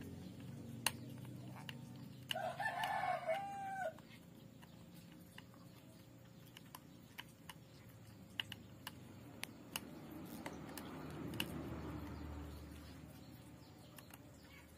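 A rooster crows once, about two seconds in, lasting a second and a half. Around it come scattered light clicks and taps as a screwdriver works on the small plastic pressure switch of an electric sprayer pump.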